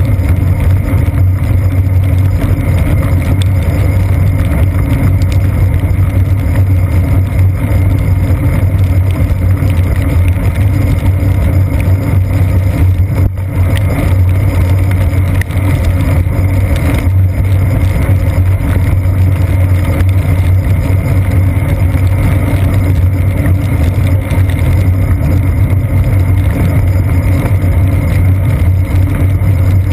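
Steady road and wind noise of a bicycle riding over wet pavement, picked up by a seat-post-mounted action camera, with a strong low hum under it.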